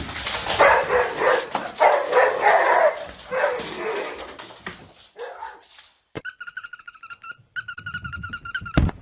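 A dog barking and whining in three loud bouts, dying away about five seconds in. After a short gap, a different run of rapid, high-pitched repeated calls begins.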